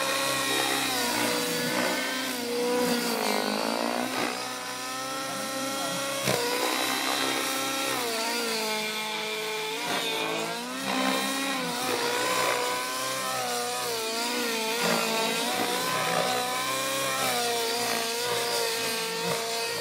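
Align T-Rex 700 radio-controlled helicopter in flight, with 710 mm SAB main blades. Its engine and rotor note rises and falls in pitch again and again as it manoeuvres.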